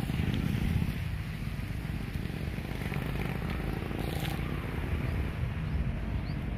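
Wind buffeting the phone's microphone, a steady low rumble, with faint distant traffic beneath it.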